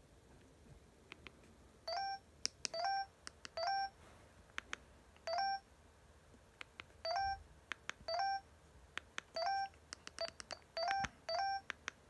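Huawei ETS3 phone's keypad tones: about a dozen short beeps, each sliding up quickly then holding, at irregular intervals as the navigation keys are pressed through the menus, starting about two seconds in. Faint clicks of the plastic keys come between the beeps.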